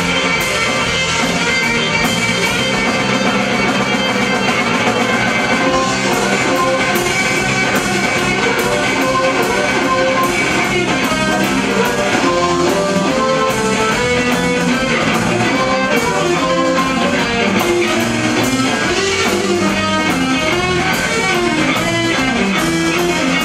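Live electric blues band playing an instrumental passage: electric guitar over electric bass and drum kit, with a lead melody line picked out note by note, no singing.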